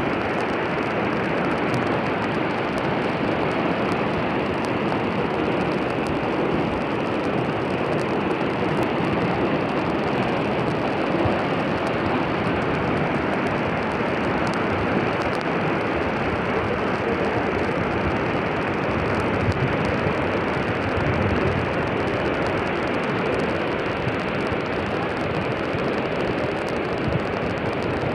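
Fast-flowing floodwater rushing through a street, a steady, unbroken rush of water noise.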